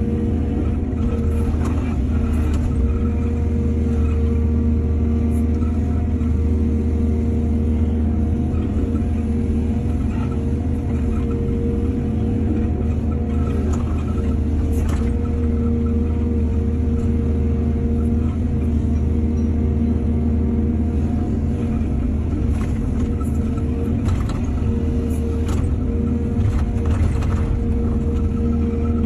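Excavator diesel engine running steadily under load, with scattered sharp knocks and clanks, most of them between about 22 and 27 seconds in.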